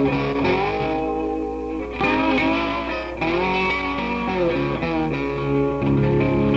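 Electric guitar played alone in loose phrases, its notes gliding up and down in pitch, then a louder held chord near the end.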